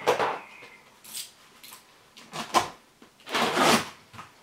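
A cardboard box being handled and its flaps pulled open: a series of short rustling, scraping noises, the loudest one near the end.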